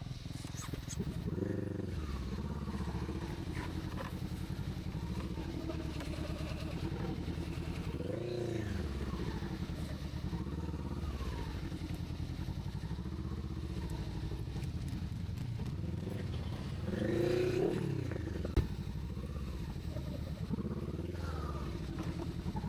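Honda CBR sportbike engine running under way, swelling up and back down in pitch three times as the throttle is opened and eased. A single sharp knock about three-quarters of the way through.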